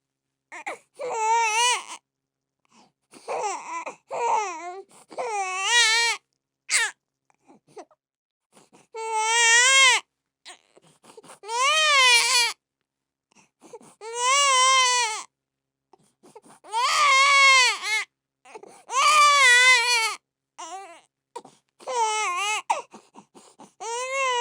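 A baby crying in repeated wails of about a second each, with short breaths between them; each cry rises and falls in pitch. The cries grow longer and louder after the first several seconds.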